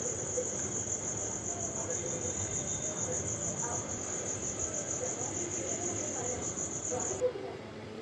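Portable butane torch flame hissing steadily while an iron-to-copper refrigerator condenser pipe joint is brazed. Throughout, a high, rapidly pulsing cricket-like chirp runs on and cuts off abruptly about seven seconds in.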